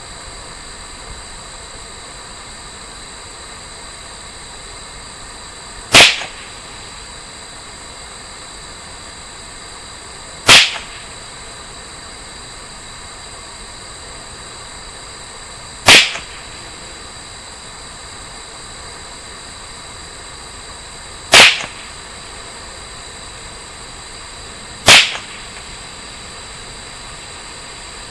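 Five single shots from a Ruger 10/22 .22 LR rifle firing CCI standard velocity ammunition, each a sharp crack, spaced about four to five seconds apart.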